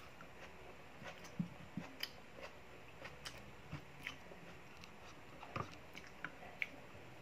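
A person eating rice and fish by hand: soft chewing with scattered small clicks and taps of fingers and food against the plate.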